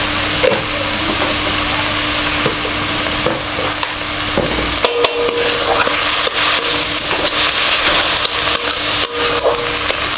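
A metal slotted spatula stirs and scrapes chopped ridge gourd and sugar around a metal kadai, clicking against the pan many times. Under it is a steady frying sizzle.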